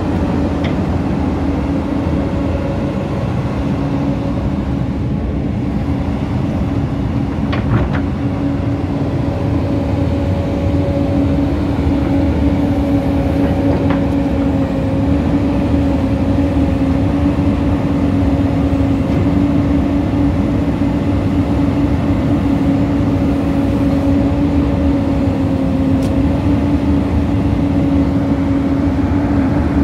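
Caterpillar 320DL tracked excavator's diesel engine running steadily at idle, a constant rumble with a steady whine over it.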